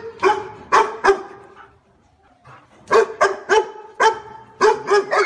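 Dog barking: a quick run of about four short, sharp barks, a pause of about a second, then about six more.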